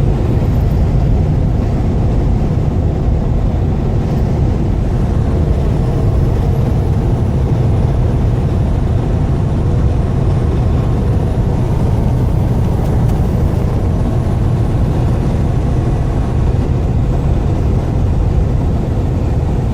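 Steady engine and road noise of a vehicle driving, heard from inside the cab: an even, unbroken low rumble.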